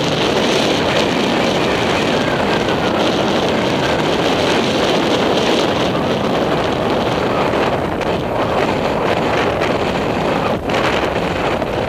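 Wind buffeting a helmet-mounted camera's microphone while the horse moves at speed across open ground: a loud, steady rush of noise, briefly dipping near the end.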